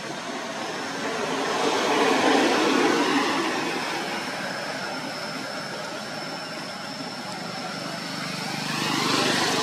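Motor vehicles passing one at a time, swelling in loudness about two seconds in and again near the end, over a steady high-pitched whine.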